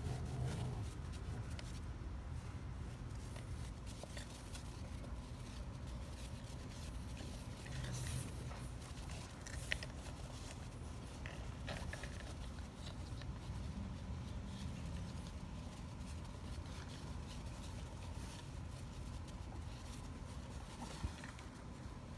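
Two Rottweiler puppies tussling over a rubber ball: faint scuffling and scraping, with a couple of sharp clicks, over a steady low background rumble.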